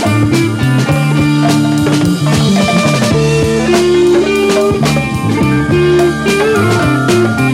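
Instrumental passage of early-1970s German progressive rock: a band with drum kit, a moving bass line and long held lead notes, guitar among the instruments.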